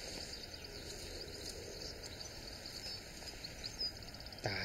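Faint riverside ambience of wind noise with small birds chirping. Near the end comes a brief pitched livestock call.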